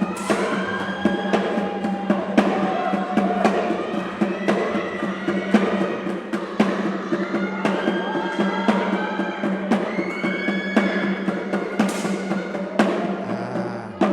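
Background music with a busy percussive beat of drums and wood-block-like knocks over pitched instruments, which fades out right at the end.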